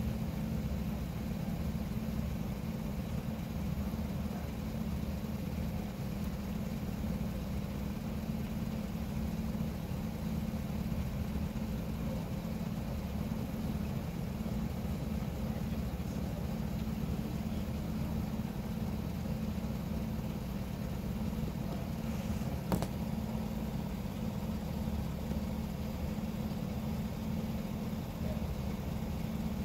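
A vehicle engine idling steadily, a low even rumble, with one brief sharp click about three quarters of the way through.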